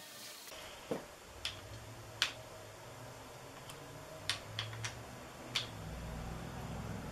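About seven sharp metal clicks at irregular intervals from a socket and long-handled wrench at the crankshaft bolt of an LS V8 block with its timing chain fitted. A low hum rises toward the end.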